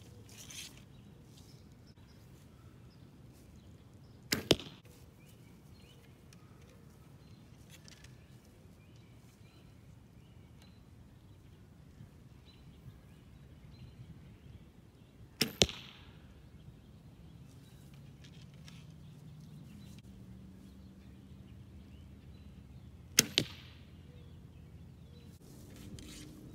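Three shots from a hand-drawn bow, a few seconds to ten seconds apart, each a sharp snap of the string with a second crack right after it.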